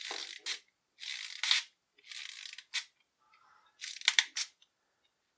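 Plastic toy blaster's wind-up knob being twisted, its clockwork motor ratcheting in four short bursts of about half a second each, with sharp clicks.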